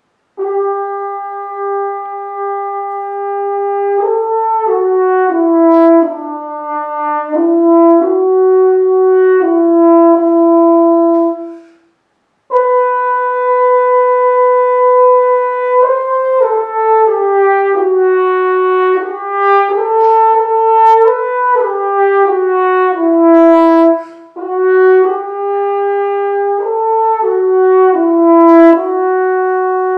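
Unaccompanied French horn playing a slow melodic passage of held notes moving mostly by step. It stops for a short gap about twelve seconds in, then starts a second phrase on a higher held note.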